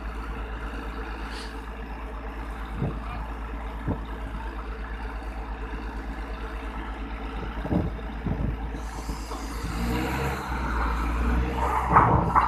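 Diesel engine of an Escorts pick-and-carry crane running steadily, with a few sharp knocks. About nine seconds in it revs up and grows louder.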